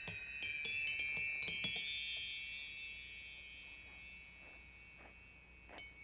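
Soundtrack music of high, bell-like chime tones. Several chimes ring out together at first and slowly fade, and a new chime is struck near the end.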